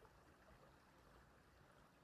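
Faint, steady trickle of a small stream.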